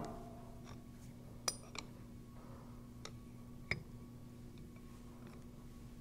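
Ringing from a metal clank dies away at the start, then about four light metallic clicks and taps come as the steel pump parts and wrench are handled, over a faint steady hum.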